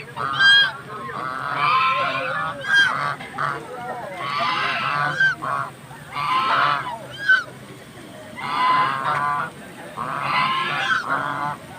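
Birds calling over and over: bouts of harsh, pitched calls come every second or two, with short, sharp, high calls between them.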